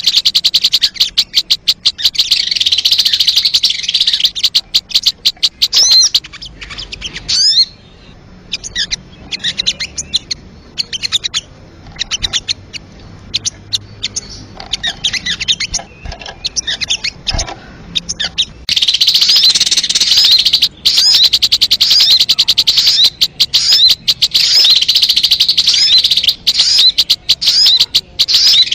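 Sogon (crimson sunbird) song used as a lure call: a rapid, high-pitched chittering trill. About seven seconds in it thins to scattered short chirps, and the dense trill returns near nineteen seconds.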